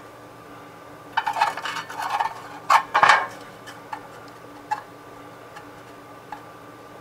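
Metal parts clinking by hand as a spacer ring and flex plate are lined up on an engine's crankshaft flange: a short run of light rattles, two sharper clanks about three seconds in, then a few scattered ticks.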